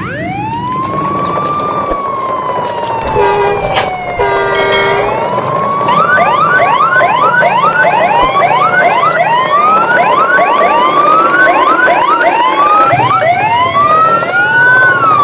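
Several sirens wailing, rising and falling slowly in pitch and overlapping. From about six seconds in, a fast yelping siren sweeps up over and over. A short horn blast comes about three seconds in, and a longer one about a second later.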